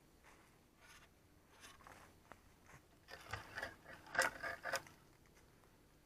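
Footsteps rustling and crunching through dry fallen leaves, faint at first, then a quick run of louder crunches from about three to five seconds in.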